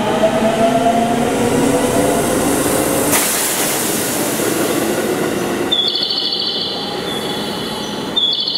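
JR West 207 series electric train pulling away, its traction inverter and motors whining in several tones that climb in pitch over the first three seconds. A short burst of hiss comes about three seconds in, and from about six seconds a high-pitched squeal sets in, in two stretches.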